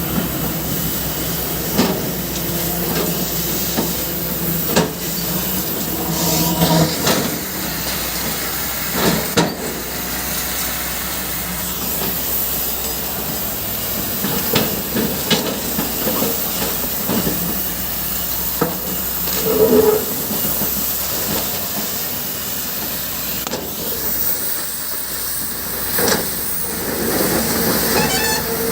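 JCB backhoe loader at work: its diesel engine runs steadily under a hissing noise, with occasional knocks.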